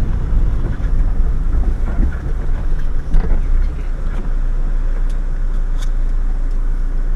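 Car cabin noise from a dashcam: a low, uneven rumble as the car rolls slowly forward, settling into a steadier engine idle hum about four seconds in as it stops. A few faint ticks sound near the end.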